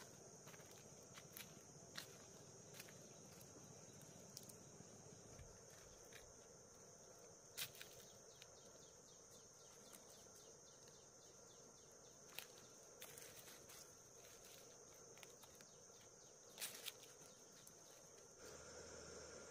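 Faint ambience: a steady high-pitched insect drone, with scattered soft clicks and rustles.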